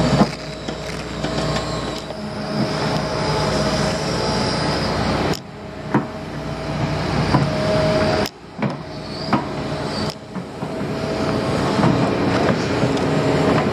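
Heavy construction machinery running, with a steady engine drone and a high metallic squeal over it. The low rumble cuts out abruptly a few times.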